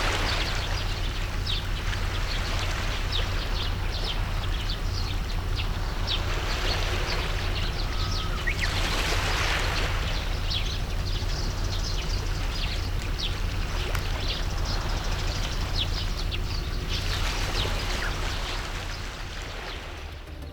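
Sea water lapping and splashing, with many short high chirps throughout and a steady low hum underneath. The sound fades down near the end.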